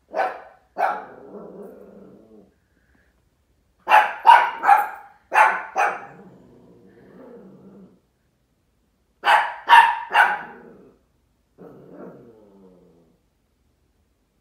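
Dog barking in three bunches, a couple of barks at the start, a quick run of about five some four seconds in and three more near ten seconds, with low growling trailing after them and a last growl about twelve seconds in: play-barking at another dog.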